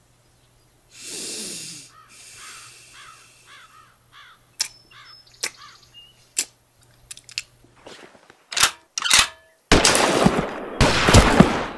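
Gunshots: a few single sharp cracks spaced out over several seconds, then a loud, dense stretch of shooting near the end. Before them, a short run of repeated chirping calls.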